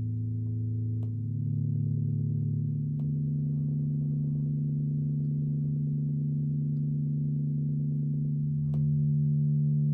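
Acoustic guitar made to sound by a Dr. Herringbone Tone Traveler vibration unit on its bridge: a steady drone of several sustained string pitches. The set of pitches changes about a second in, near three seconds and near the end as individual strings are switched on, each change marked by a faint click.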